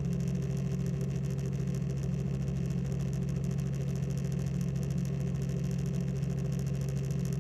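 Light aircraft engine droning steadily in the cockpit, a constant low hum with no change in pitch.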